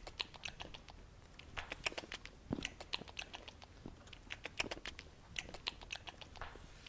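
A person biting and chewing food straight off a paper plate, heard as a string of soft, irregular crunching clicks.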